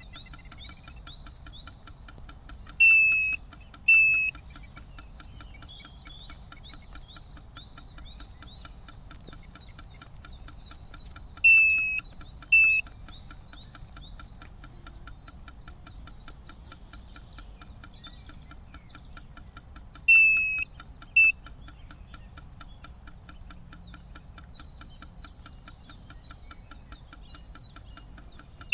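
Lucky FF918-C fish finder beeping in pairs: a longer beep that dips slightly in pitch, then a short one, repeating about every eight seconds, three times. Under the beeps runs a fast, even ticking, with faint bird chirps.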